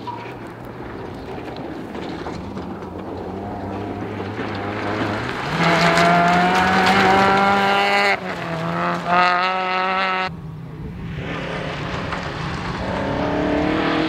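Ford Fiesta rally car approaching flat out, its engine note climbing in pitch and loudness to a peak as it passes, with two short lifts off the throttle near the end of the pass. After a sudden cut, a second rally car, a Mk2 Ford Escort, is heard approaching, its engine note building again.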